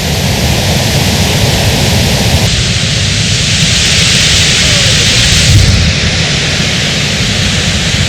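Waterfall rushing: a loud, steady roar of falling water that grows brighter and hissier for a few seconds in the middle.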